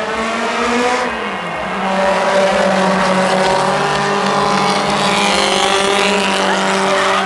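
Racing car engines running hard as cars pass on the circuit. The engine note dips in pitch a second or so in, then holds a steady high-revving drone.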